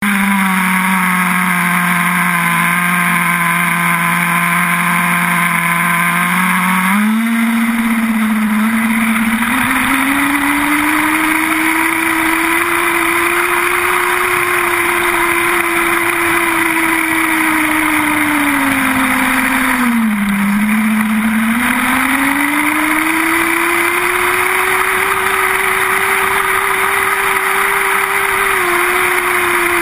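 Small nitro engine of a 4x4 RC off-road buggy idling steadily, then revving up about seven seconds in as the buggy drives off. The engine holds a high pitch with a dip about twenty seconds in and eases off near the end, heard close up from a camera mounted on the buggy.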